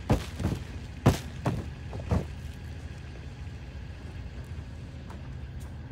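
Storm-drain filter sack on its stainless steel frame knocked against gravel ground to shake out trapped sediment, about five sharp thuds in the first two seconds. After that only a steady low hum remains.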